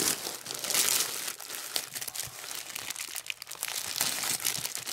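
Plastic mailer bag and wrapping crinkling and crackling as hands handle it, loudest about a second in.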